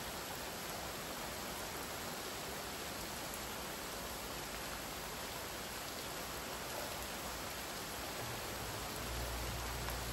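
Steady rain falling, an even hiss of drops; a low rumble comes in near the end.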